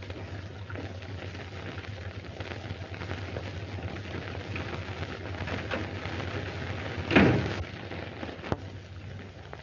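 Crackling surface noise and a steady low hum from an old optical film soundtrack, broken by a single loud thump about seven seconds in.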